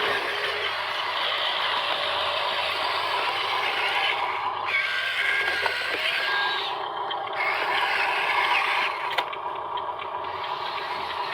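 Radio-controlled model construction vehicles working, their small electric motors and gearboxes whirring along with scraping and clattering. A steady tone sounds for about two seconds midway, and a sharp click comes near the end.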